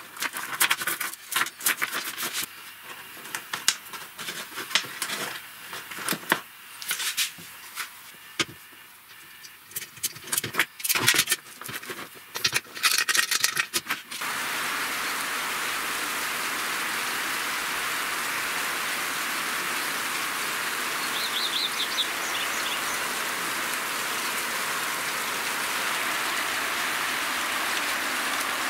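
Steel link chain clinking and rattling as it is handled on a wooden workbench, with sharp irregular clicks. About 14 seconds in this gives way to a steady hiss of rain, with a brief bird chirp partway through.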